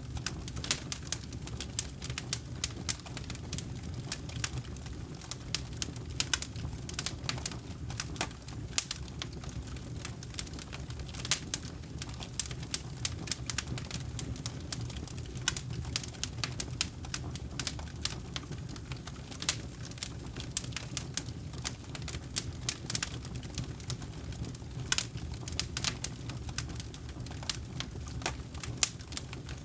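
Wood campfire burning: frequent, irregular sharp crackles and pops over a steady low rumble of the flames.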